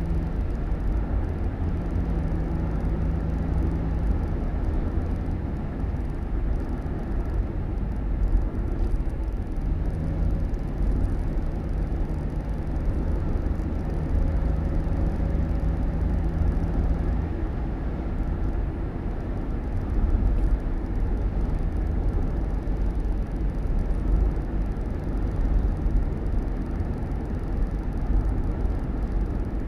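Steady low rumble of a vehicle on the move, with a low hum that comes and goes during the first half.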